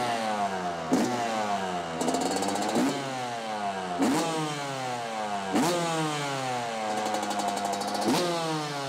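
2019 Yamaha YZ125 single-cylinder two-stroke engine with an HGS exhaust pipe, revved in about six sharp throttle blips, each falling back toward idle, with a couple of brief held revs between them.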